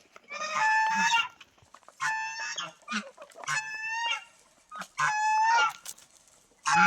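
Poultry calling loudly over and over: five short calls about a second and a half apart, each held level in pitch.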